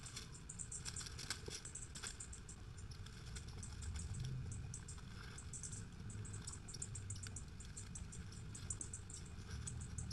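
Labrador retriever eating cat droppings in leaf litter: quick, irregular wet smacking and chewing clicks over a low steady rumble.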